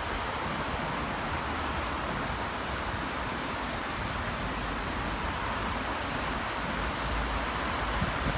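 Steady rush of a heritage passenger train running along the line, heard at an open carriage window: wheel and track noise with air rushing past.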